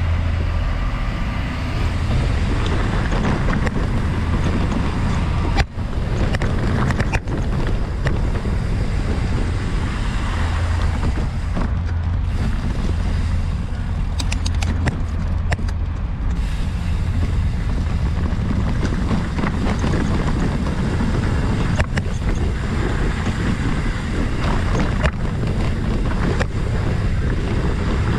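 Wind buffeting the microphone as a Trek Roscoe hardtail mountain bike is ridden along a dirt trail, a steady low rumble with the noise of tyres on dirt and a few sharp knocks from the bike over rough ground.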